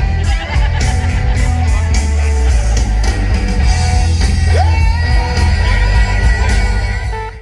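Loud hard rock music: heavy bass, distorted guitars and a yelled vocal. About halfway through, a note slides up and is held to the end.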